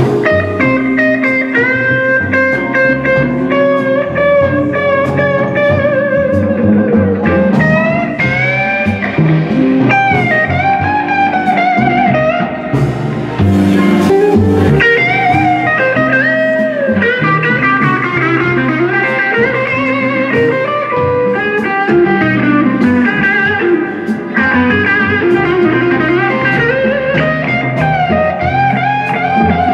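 Blues electric guitar solo played live over the band, on a gold-top single-cutaway electric guitar: held notes with bends rising and falling in pitch.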